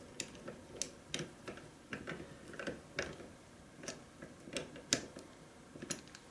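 Light, irregular clicks and ticks of a hand screwdriver turning the small screws that fasten a PanaVise jaw bracket to its metal slide block, about two clicks a second.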